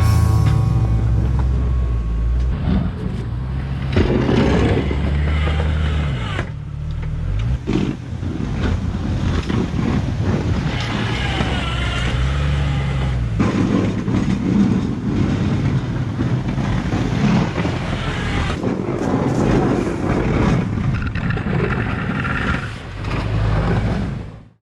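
Jeep Wrangler TJ engine running under load, its pitch rising and falling as it revs up and down while plowing snow. It cuts off suddenly at the end.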